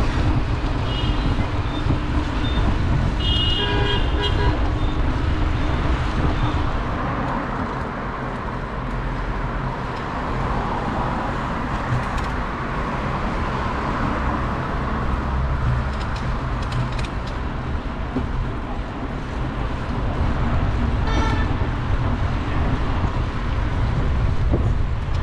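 Road traffic noise with a vehicle horn sounding a few seconds in and again near the end, over a steady low rumble; a louder swell of traffic noise in the middle suggests a vehicle passing.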